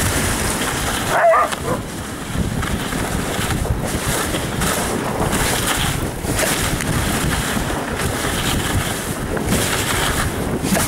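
Dog-sled runners sliding over snow with wind on the microphone, and one short, high yelp from a sled dog about a second in.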